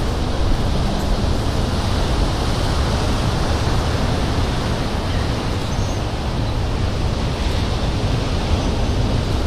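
Steady rushing noise of beach surf and wind, heaviest in the low end. No engine sound of the passing jet stands out.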